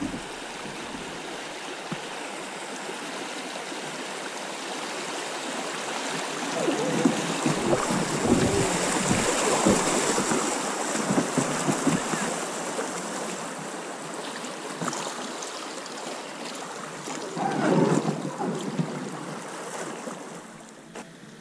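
Fast river current rushing and splashing around a small boat drifting downstream over a riffle, swelling louder for a few seconds mid-way, with a few short splashes.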